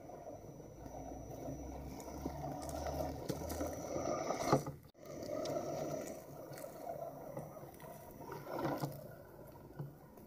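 Axial SCX10 Trail Honcho 1/10-scale RC crawler driving over twigs and dry leaves: a thin electric motor and gear whine over tyres crunching through debris. The sound drops out abruptly just before halfway, then the running noise resumes.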